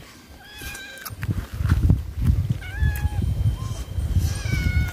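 A cat meowing, about three short meows: one about half a second in, one near the middle and one near the end. Under them runs an irregular low thumping rumble that grows louder after the first second.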